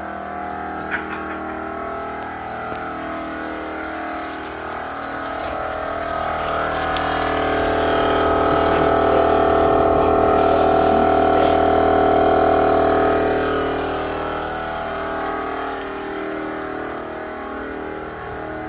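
A steady mechanical drone with a low rumble and several level tones. It grows louder from about five seconds in, peaks around ten seconds, and fades back by about fourteen seconds.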